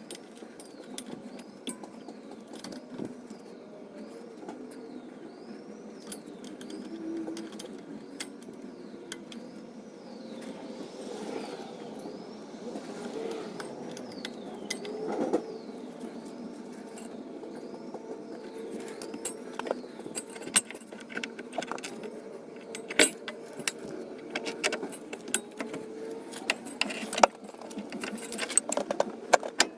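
Metal hand tools and parts clinking and clicking while working on a car's front suspension and hub, with the sharp knocks coming thicker in the second half. A faint high chirp repeats about every second and a bit through the first half.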